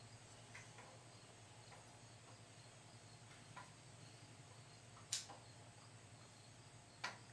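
Near silence: room tone with a low hum, broken by two sharp clicks about five and seven seconds in.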